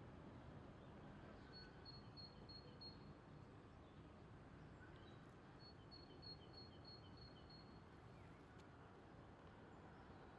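Near silence with faint outdoor hiss, and a small bird calling in two short runs of quick, high repeated chirps, the first about a second and a half in and the second about six seconds in.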